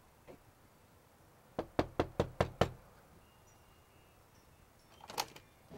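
Six quick knocks on a front door, evenly spaced at about five a second.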